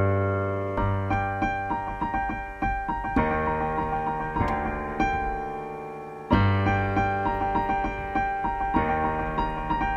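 Piano music: a gentle melody of single notes over low chords, with a new low chord struck a little after six seconds in.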